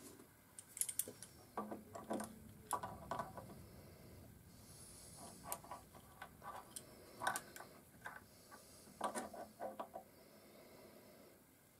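A steel spanner and an adjustable wrench clicking and clinking against two nuts on a threaded steel stud as the nuts are locked against each other. Faint, irregular metallic taps and clicks, some with a brief ring.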